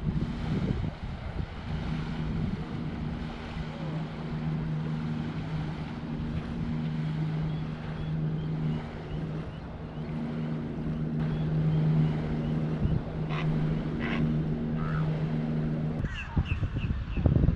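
Wind buffeting the microphone over a steady low motor hum. Near the end the hum stops abruptly and a row of short, evenly spaced high chirps follows.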